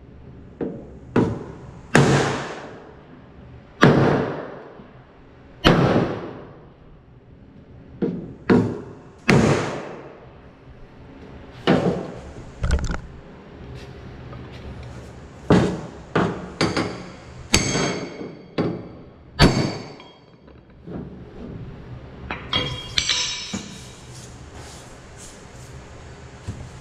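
Hammer striking a wooden block held against a car door's steel inner shell to knock the damaged shell straight. The knocks are hard and irregularly spaced a second or two apart, several with a short metallic ring, with lighter clinks near the end.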